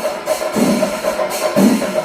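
Kerala temple percussion ensemble playing: a low drum stroke about once a second under brass hand cymbals clashing, with a steady held tone running through.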